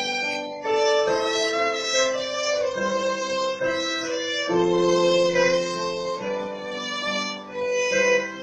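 Violin playing a melody over an electronic keyboard's held chords, the notes sustained and changing every second or so.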